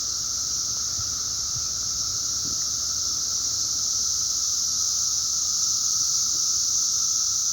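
Dense chorus of cicadas: a loud, steady, high-pitched drone with a fainter lower tone beneath it, swelling slightly about halfway through.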